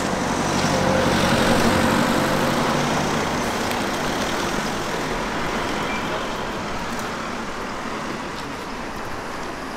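A bus's engine running close by on the road, its low hum fading over the first few seconds, then steady street-traffic noise that slowly dies down.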